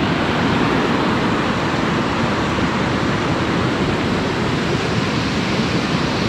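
Steady rush of a fast mountain river running over rocks in white water.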